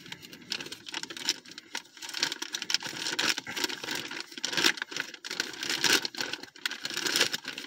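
Packaging rustling, crinkling and tearing in irregular scrapes and short bursts as a mail package is cut and pulled open with a knife.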